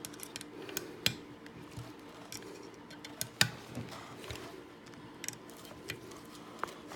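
Scattered light metallic clicks and taps, irregularly spaced, from bolts being tightened down with a hand tool on a pneumatic flooring stapler's cap.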